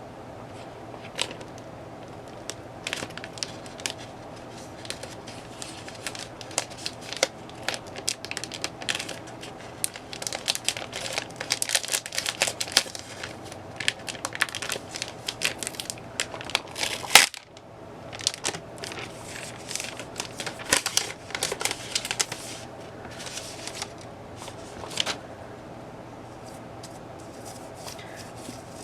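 Plastic packaging crinkling and rustling as it is handled, with scattered sharp clicks and crackles. The crinkling is thickest in the middle, where one loud click is followed by a brief drop in sound.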